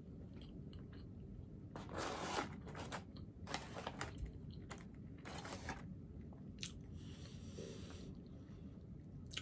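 Close-up chewing of a crispy fried chicken sandwich, with several short crunching bursts from the breading.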